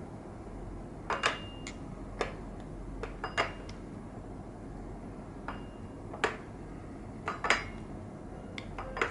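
Light metallic clicks and clinks, about a dozen at uneven intervals, some with a brief high ring. These come from the steel needles and fittings of a Harrison semi-automatic sock knitting machine being handled and set by hand.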